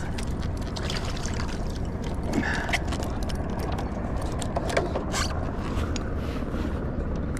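A spotted bay bass being landed onto the plastic deck of a Hobie Mirage pedal kayak: a few short splashes and knocks over a steady low wind rumble on the microphone.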